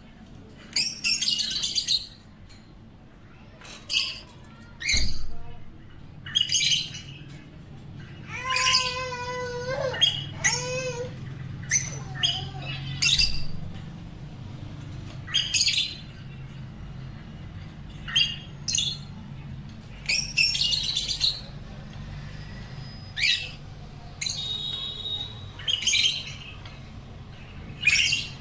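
Pet cockatiel and African lovebirds calling: short, shrill chirps and squawks every second or two, with a longer wavering call about nine seconds in, over a steady low hum.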